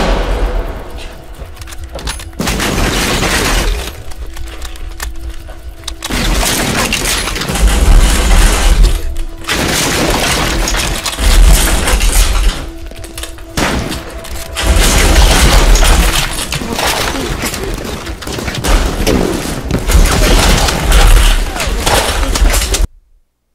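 War-film gunfire scene played loud through a home-theater system with dual SVS SB16 Ultra and PB16 Ultra subwoofers, heard in the room: repeated loud bursts of gunshots and impacts with deep bass booms over music. The room microphone distorts from the output. The sound cuts off suddenly near the end.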